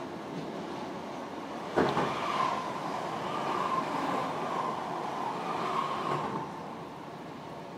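Electric passenger train running at speed, heard from inside the carriage: steady rolling noise, then a sudden whoosh about two seconds in as it passes a brick overbridge. The noise stays louder with a steady whine for about four seconds, then falls back.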